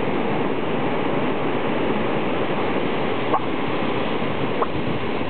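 Steady rushing surf noise, with two short, soft, hiccup-like barks from a black pug about three and a half and four and a half seconds in.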